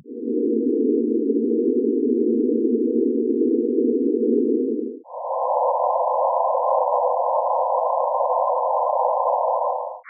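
Pink noise passed through a band-pass filter: a steady, even hiss in the 225–490 Hz band. About halfway through it fades briefly and steps up to a higher hiss in the 490–1067 Hz band.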